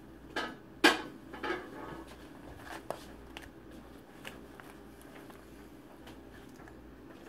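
Handling noise from wound-dressing supplies: a few short, sharp crinkles and clicks in the first half, the loudest about a second in, over a faint low hum.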